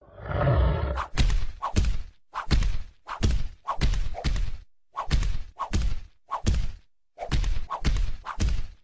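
A rapid series of about twenty sharp thuds, two to three a second and often in pairs, as a cat swats repeatedly at a dog, with a brief pause about seven seconds in.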